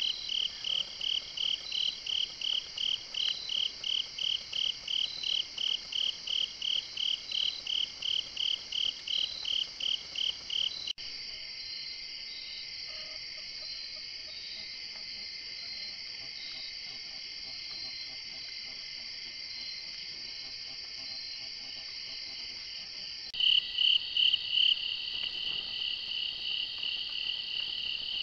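Night-time chorus of crickets and other singing insects: a loud, regular pulsing chirp, about three pulses a second, over a steady high trill. About 11 seconds in it changes abruptly to a steadier continuous trill without the pulsing, and about 23 seconds in the loud pulsed chirping returns.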